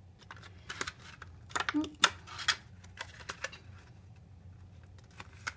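Patterned cardstock being folded along its score lines and pressed together by hand into a small taped box, giving scattered crisp paper crackles and clicks.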